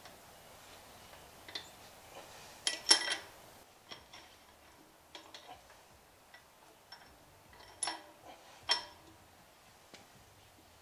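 Light metallic clicks and clinks from the steel differential carrier and shims being handled and seated in a GM 9.5-inch 14-bolt axle housing. A few louder, ringing clinks come about three seconds in and twice later on.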